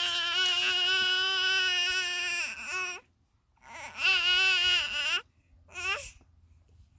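Baby crying: one long wavering wail, a second wail about four seconds in, and a short third cry near six seconds.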